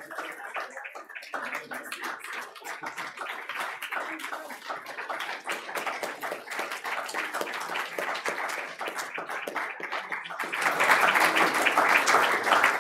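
Audience applauding with steady clapping that swells clearly louder about ten and a half seconds in.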